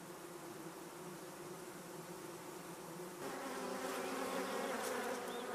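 Honeybees buzzing: a steady hum made of several pitches. It swells louder and fuller about three seconds in.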